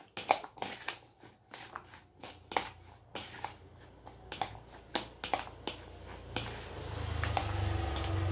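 Bare hand mixing a wet filling of diced potato and carrot with egg in a plastic bowl: irregular soft squelches, clicks and rustles. In the last two seconds a low steady hum builds up underneath.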